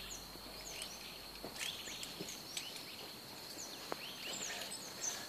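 Faint countryside ambience: a steady high-pitched insect trill with many short bird chirps scattered over it.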